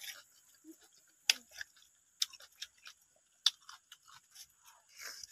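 Close-miked chewing of laksa noodles, soft and wet, broken by a few sharp clicks.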